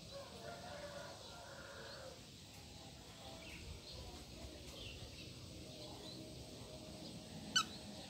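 Lutino cockatiel chirping softly, with faint, wavering whistled notes and a few scattered thin chirps, then one short, sharp chirp near the end that is the loudest sound.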